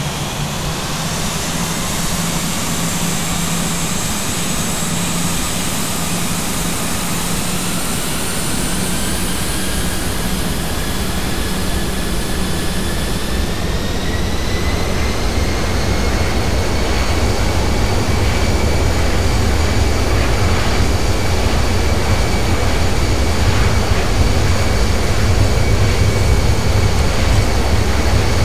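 Airbus A320 jet engines spooling up for takeoff: a whine that rises in pitch for about fifteen seconds and then holds steady at takeoff thrust, while a low rumble grows louder and the whole sound swells.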